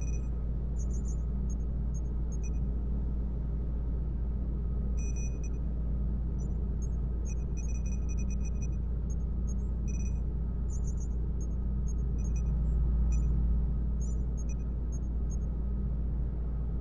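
Sci-fi space-dock ambience: a steady low hum and rumble with scattered short electronic beeps and blips from control-room equipment.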